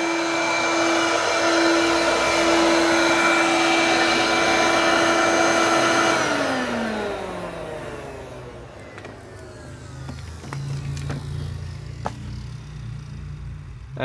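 Hoover Turbopower Freedom upright vacuum cleaner running loud on its high setting with a steady motor whine, its brush roll not turning, which the owner puts down to a snapped or stretched belt. About six seconds in it is switched off and the pitch falls as the motor spins down, followed by a few light knocks as the machine is handled.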